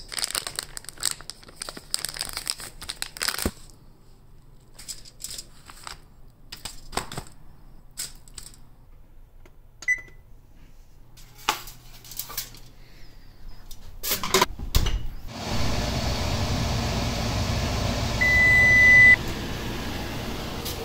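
Plastic film on a tray of chicken breasts crinkling and rustling as it is peeled open, then an electric oven's keypad beeping once as a button is pressed. Later a steady rushing noise comes in, with a longer single oven beep.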